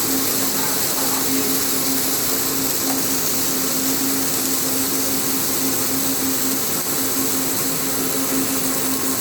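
Automatic multi-torch welding machine running: a steady hiss of the welding arcs, with a constant low hum under it.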